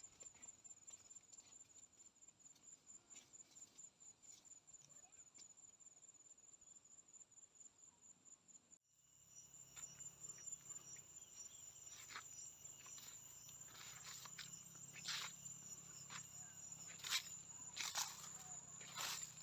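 Faint, steady, high-pitched insect trill, pulsing rapidly, with scattered soft clicks and rustles. The sound drops out for a moment about nine seconds in and comes back slightly louder.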